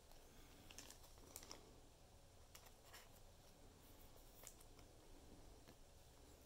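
Near silence: a few faint ticks and taps of trading cards being handled and shuffled.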